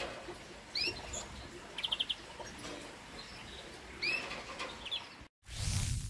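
Small aviary songbirds giving short scattered chirps and calls, with one quick rapid series of notes about two seconds in. Near the end the sound cuts out and a loud whoosh sound effect begins.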